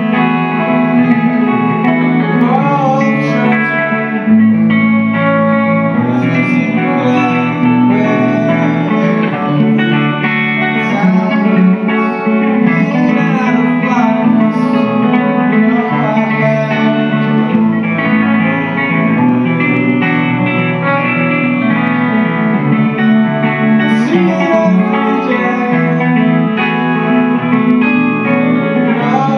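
Live guitar music played continuously, with guitar notes over a low bass line that changes pitch every few seconds and a few sliding notes.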